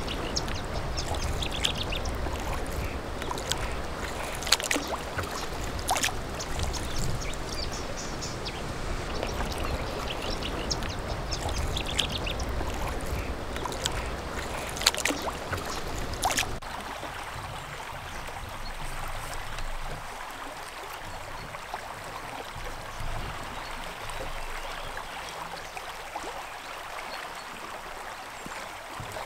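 Kayak paddle strokes dipping and splashing, with water sloshing along the hull and a few sharp clicks. About two-thirds of the way through it drops to a softer, steady rush of river water past the kayak's bow.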